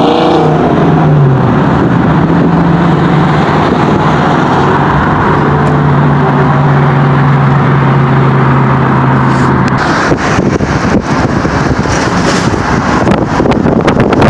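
Highway driving noise from a moving vehicle: a steady rush of road and wind noise with an engine drone that drops in pitch about a second in, then holds steady. About ten seconds in it cuts to gusty wind buffeting on the microphone over passing traffic.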